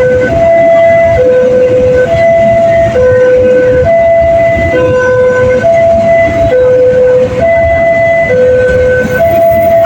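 Electronic railway level-crossing warning siren sounding a two-tone alternating pattern: a lower and a higher tone, each held just under a second, repeating steadily. Underneath is the loud rumble of a passing train.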